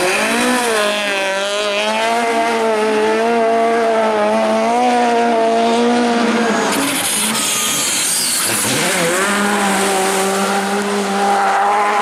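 A Peugeot 306 Maxi kit car's engine revving hard, its note wavering up and down as the car slides on loose dirt. About seven seconds in there is a burst of hissing tyre and gravel noise, and after that a rally car's engine holds a steadier high-revving note.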